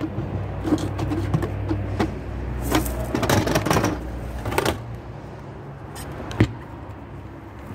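Scraping and knocking from handling a plastic cassette toilet tank at its compartment in an RV's side wall. About six seconds in comes a single sharp click as the hinged exterior access door is pushed shut.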